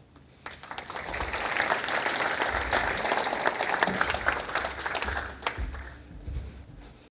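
Audience applauding: many hands clapping, starting about half a second in, swelling quickly, then dying away over the last couple of seconds.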